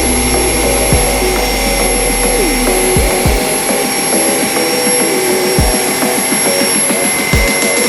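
JIMMY H10 Flex cordless stick vacuum running with a steady high whine, under background music with a beat.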